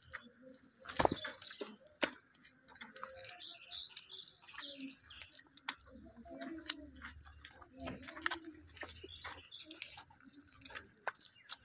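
Calf suckling at a cow's teats: irregular wet smacking clicks and sucks, with a sharp knock about a second in. Birds chirp in the background.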